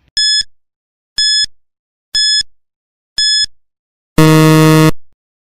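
Quiz countdown timer sound effect: four short, high beeps about a second apart, then a louder, longer, lower buzz about four seconds in that ends the countdown.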